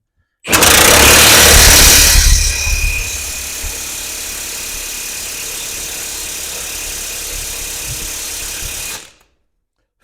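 Impact wrench running on a truck fastener. It is loudest for about the first two seconds, which is typical of hammering a nut loose, then runs at a lower steady level, as it does when spinning a loosened nut off, and stops sharply near the end.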